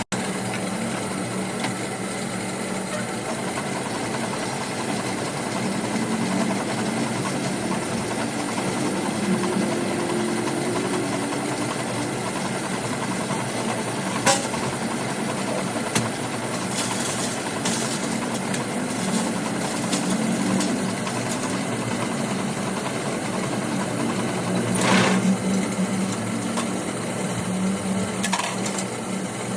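Lathe running steadily while iron wire is wound onto it into a long coil spring, with a couple of sharp clicks about halfway and short hissing scrapes of the wire in the later part.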